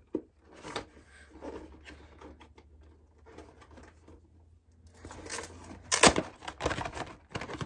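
Hands working open a cardboard Pokémon card box set: scattered light taps and clicks, then from about five seconds in a spell of louder rustling and crinkling of the packaging, loudest around six seconds in.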